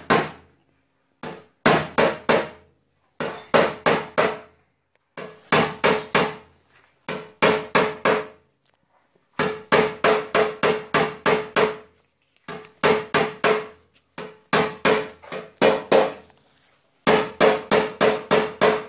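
Light hammer taps knocking down high spots on the steel front wing of a Lada Granta during paintless dent repair, in bursts of about four to eight taps at roughly four a second with short pauses between. Each tap gives a short metallic ring from the panel.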